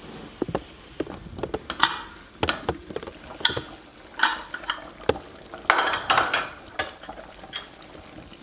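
Aluminium pressure cooker being opened after cooking: irregular metal clicks and clanks as the lid is worked off. A metal ladle then scrapes and knocks against the inside of the pot as it stirs the chicken.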